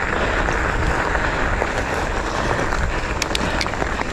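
Mountain bike riding down a dirt forest trail, heard from the bike-mounted action camera: a steady rush of wind and tyre noise, with a few sharp clicks or rattles about three seconds in.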